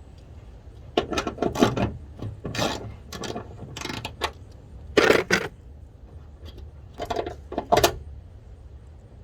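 Irregular metallic clinks and clatter of hand tools and hardware being handled during work on a Jeep's hood latch, in short clusters of sharp clicks over several seconds.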